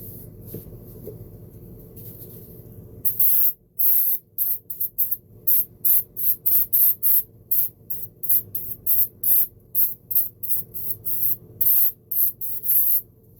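An aerosol can of electrical contact cleaner sprayed in many short, sharp hissing bursts, about two a second, starting about three seconds in. The spray is cleaning dirty centrifugal start-switch contacts in an electric motor.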